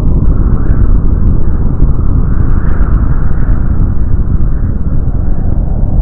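Explosion sound effect: a loud, continuous low rumble with faint crackling through it, the drawn-out rumble that follows a large blast.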